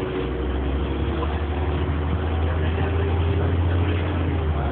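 Volvo TD102KF six-cylinder turbo-diesel engine of a Volvo Olympian double-decker bus running as the bus drives, heard from inside the lower deck: a steady, deep drone that eases off near the end.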